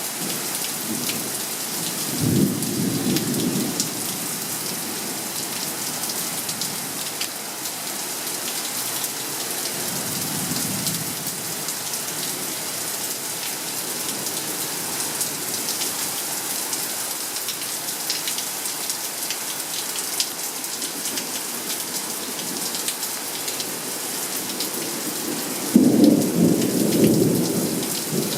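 Steady rain falling through a thunderstorm, with rolling thunder: a rumble a couple of seconds in, a fainter one about ten seconds in, and a louder clap that starts suddenly near the end and keeps rumbling.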